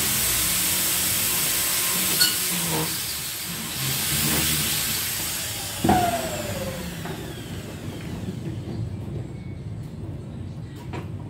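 Handheld electric power tool working on a metal screen-window frame: a loud whirring, grinding noise for about four seconds, then the motor winds down with a falling pitch. A sharp clank about six seconds in, after which only quieter handling noises remain.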